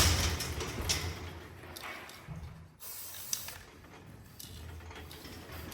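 Aerosol livestock marking spray can hissing in several short bursts, the first and loudest right at the start.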